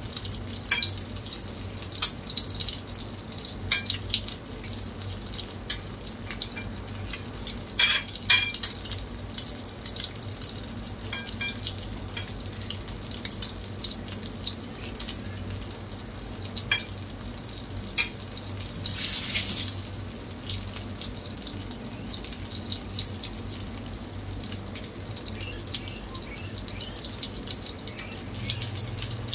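Tortang talong (egg-coated eggplant) frying in oil in a nonstick pan: a steady sizzle with frequent sharp pops and crackles. There are two loud pops about eight seconds in and a brief hissing spurt around nineteen seconds.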